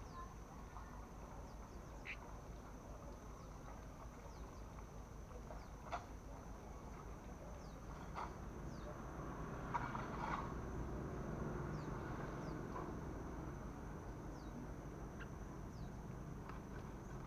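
Steady high-pitched insect drone with scattered short, falling bird chirps and a few light knocks.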